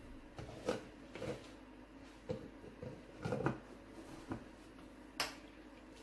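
Light, irregular knocks and clatters of kitchen utensils and containers being handled while preparing a homemade syrup, about half a dozen over the few seconds.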